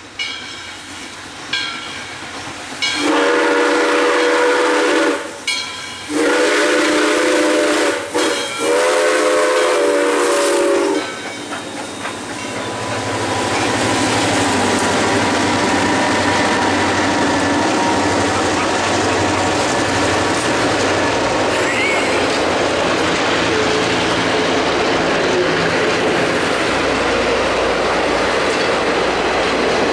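Diesel locomotive horn, several tones sounding together, blown in the grade-crossing pattern: long, long, short, long. Then the Norfolk Southern diesel locomotives run past, and the passenger cars roll by with steady wheel clatter on the rails.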